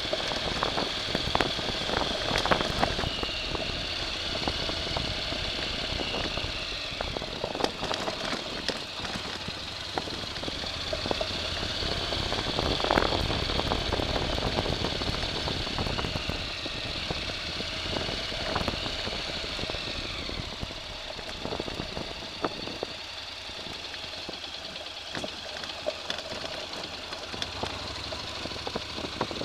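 A vehicle's engine running, with many short knocks and rattles throughout and a high whine that rises and falls several times. The loudest moment is about halfway through.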